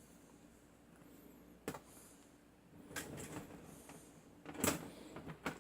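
Hand wire stripper working on a phone cable: a few sharp clicks and short rasps as the jaws close on the cable and strip the insulation. The loudest snap comes near the end.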